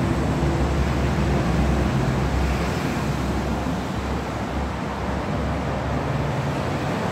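Steady low mechanical hum and rumble.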